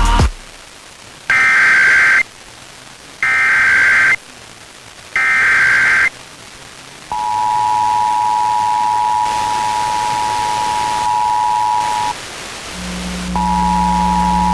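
Emergency Alert System test received over FM radio: three short bursts of SAME header data, each about a second long, then the steady two-tone EAS attention signal from about 7 s in. The attention tone drops out briefly near 12 s and comes back with a low hum beneath it.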